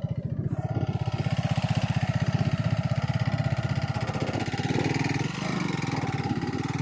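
Motorcycle engine running steadily as the bike is ridden, with an even exhaust beat that eases off briefly about five seconds in.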